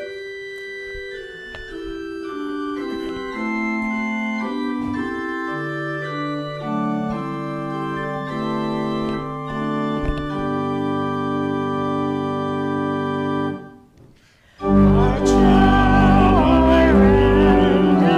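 Church organ playing a hymn introduction in slow, sustained chords, closing on a long held chord that stops about 13 seconds in. After a brief pause the organ comes back louder and voices join in singing the hymn.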